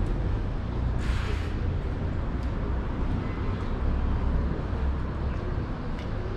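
City street ambience: a steady low rumble of passing road traffic, with a short hiss about a second in.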